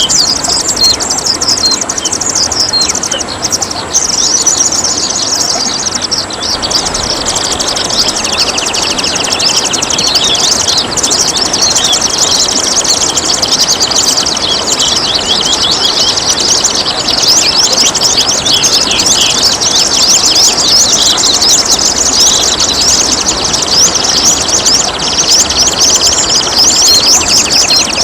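Several songbirds singing and chirping continuously in fast, high trills and quick repeated notes, over a steady trickle of running water.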